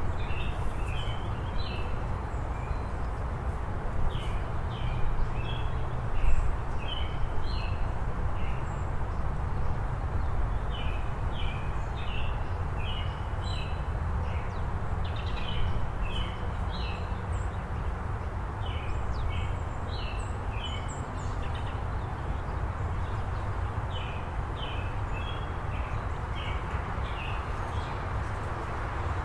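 A small bird chirping: quick groups of three to five short, high notes, repeated every second or two with a few pauses. Underneath is a steady low rumble of background noise.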